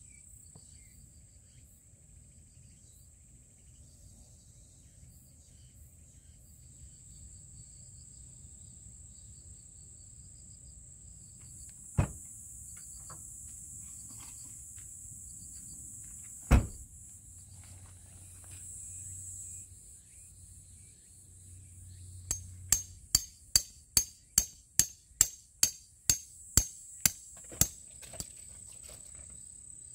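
Steady high-pitched drone of insects throughout, with two loud single knocks in the middle. Near the end comes a run of about a dozen sharp hammer strikes, about two a second, typical of driving tarp pegs into gravel ground.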